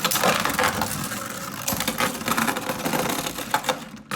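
Two Beyblade Burst spinning tops, Wonder Valtryek V4 and Z Achilles A4, spinning and clattering against each other in a plastic Beystadium: a dense, rapid run of plastic clicks and knocks.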